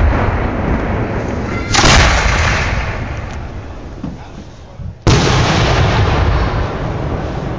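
Aerial firework shells bursting overhead: two loud booms, about two seconds and five seconds in, each followed by a long echo that slowly fades away.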